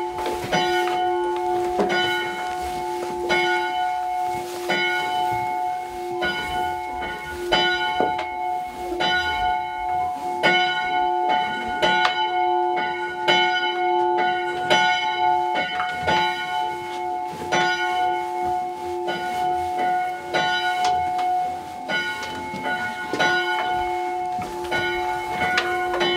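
Chapel bell, the 'peace bell', swung by a hand-pulled rope and rung continuously: one stroke about every one and a half seconds, each note still ringing when the next comes.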